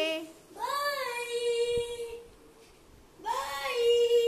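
A young child singing two long held notes, each sliding up at the start and then held steady, with a short quiet pause between them.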